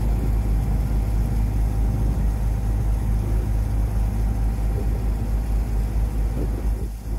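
Sightseeing boat's engine running with a steady low drone, heard from on board.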